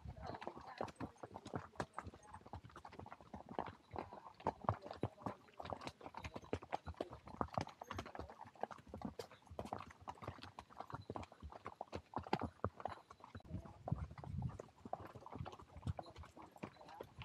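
Horse hooves clopping on a dirt trail under a ridden horse, a continuous uneven run of hoofbeats.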